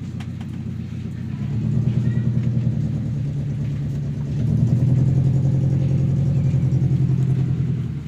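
An engine running with a low, pulsing note, getting louder about one and a half seconds in and again at about four and a half seconds, then dropping away near the end.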